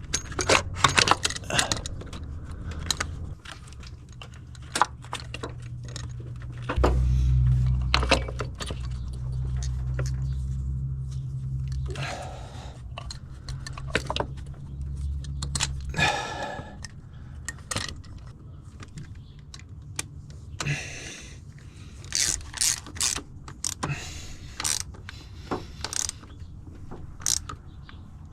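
Scattered metallic clicks and clinks of a spark plug socket and wrench on a 2004 GMC Canyon's engine as spark plugs are threaded back in one at a time. A low steady hum runs for several seconds in the middle.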